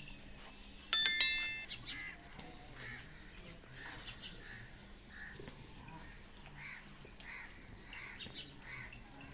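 A single loud metallic clang about a second in, ringing and fading over about half a second, followed by faint, scattered bird calls.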